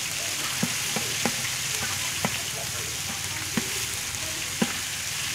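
Curry paste sizzling in oil in a large metal pot while a metal ladle stirs it, the ladle knocking against the pot about six times, the sharpest knock near the end.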